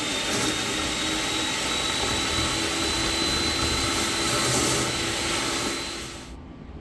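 Freddy EcoVac 2 kW coolant recycling vacuum running steadily, sucking chips and coolant through its hose, with a thin high whine that rises slowly. The sound drops away abruptly about six seconds in.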